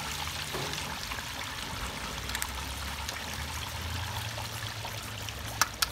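Whole turkey deep-frying in a pot of hot oil: a steady sizzling, bubbling hiss with a low hum underneath. Two sharp clicks near the end.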